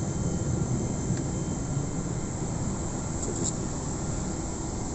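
Steady rush and low hum of the air-conditioning airflow inside a parked Boeing 777-200's passenger cabin, with a few faint thin high tones over it.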